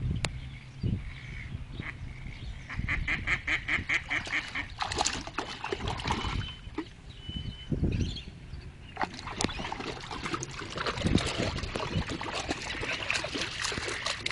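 Wild ducks quacking in alarm, with a quick run of about six calls a second a few seconds in.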